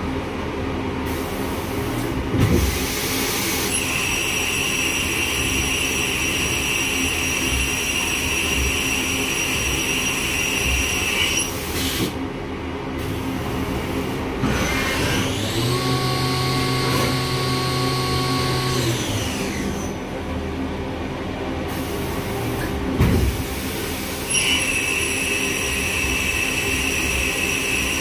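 Chevalier 2040 VMC-L CNC vertical machining center running, with a steady machine hum. A high steady whine sets in about four seconds in, stops around eleven seconds, and returns near the end. In the middle a second whine rises, holds for a few seconds and falls away, and two short clunks come about two and a half seconds in and again about twenty-three seconds in.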